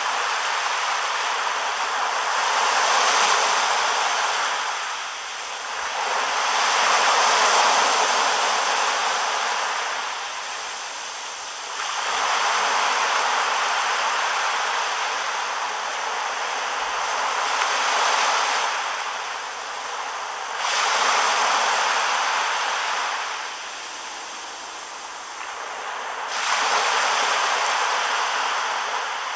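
Sea surf breaking and washing up a sandy beach, the rush of water swelling and fading every four to five seconds.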